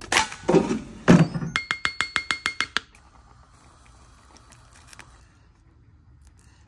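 Kitchen food-prep handling: a few knocks and rustles, then a quick run of about a dozen ringing clinks in just over a second, then only faint handling noise.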